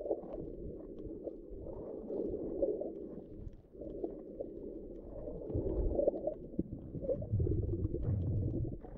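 Muffled underwater sound picked up by a camera held underwater while snorkeling: a low, uneven rumble and wash of moving water with almost nothing in the higher tones.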